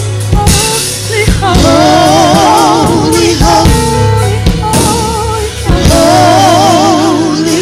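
Live gospel praise-team singing: several singers holding long notes with wide vibrato, backed by drums and a steady low bass.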